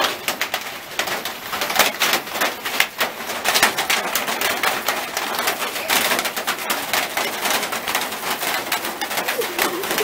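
Hail pelting down on leaves, ground and puddles: a dense, continuous patter of sharp ticks.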